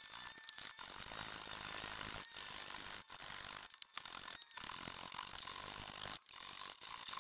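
Hand file rasping across hardwood at the corner of a dovetail joint, in repeated strokes about one a second with short breaks between them.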